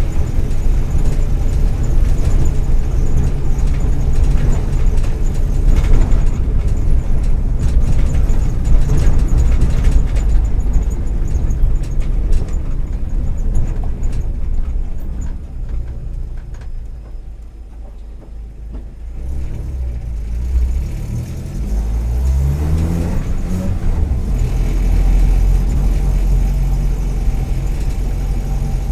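Volkswagen EA111 1.4-litre four-cylinder engine of a Kombi van, heard while driving. It runs steadily, drops away for several seconds past the middle, then climbs in pitch as it accelerates again. Its spark plug leads and ignition coil are worn, which makes it misfire at times, and its exhaust manifold is probably cracked.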